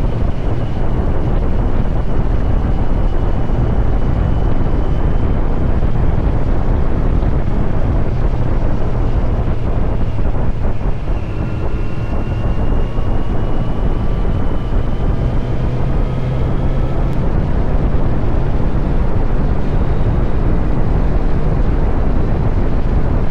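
Kawasaki Z900 SE's inline-four engine running through an SC-Project CR-T slip-on exhaust while riding, under heavy wind rush on the microphone. About halfway through, the engine pitch rises steadily for several seconds.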